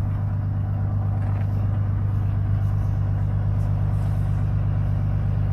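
A vehicle engine running steadily at constant speed, an even low hum.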